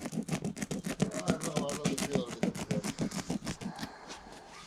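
Leatherman multi-tool blade cutting through carpet: a rapid run of short, scratchy strokes, with a tune playing faintly underneath.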